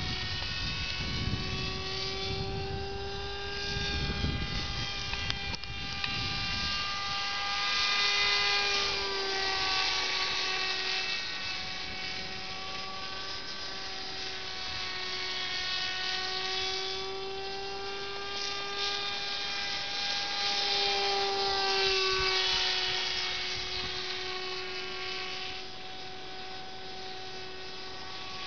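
Electric, battery-powered radio-controlled pusher model airplane in flight: its motor and propeller give a steady buzzing whine whose pitch wavers slightly up and down, swelling louder twice as it passes closer.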